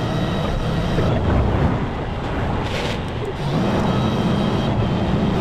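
Steady low engine rumble, as of heavy diesel machinery and road traffic, with no sharp events.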